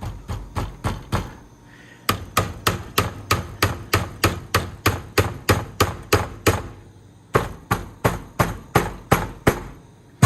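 Hand striking the cabinet of a Scooby-Doo pinball machine in rapid, even knocks, about five a second, in three runs with short pauses. The cabinet is being banged to trip the tilt switch, which is not registering the hits.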